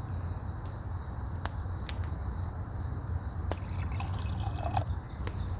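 Wood campfire crackling, with a few sharp, irregular pops.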